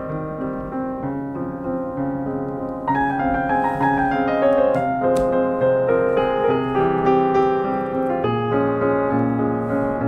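Background piano music: a gentle melody over held notes, growing louder about three seconds in with a run of falling notes.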